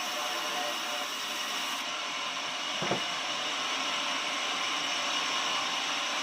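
Sawmill saw running steadily, with a single knock about three seconds in.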